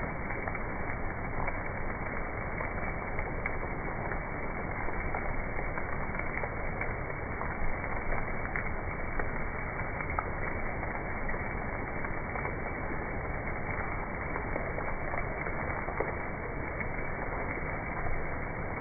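Steady, muffled hiss of a background nature-sound track, dotted throughout with small crackles and ticks.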